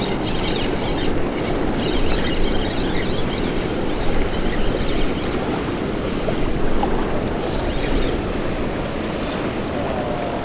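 Steady rushing roar of river water churning from the dam's hydroelectric outflow, with wind on the microphone. A fainter, finer whirring sits over it for the first five seconds and again about eight seconds in.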